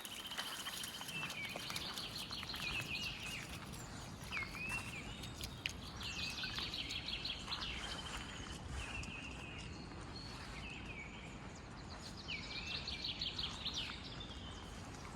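A songbird singing short trilled phrases, a new phrase every few seconds, over a steady low rushing noise.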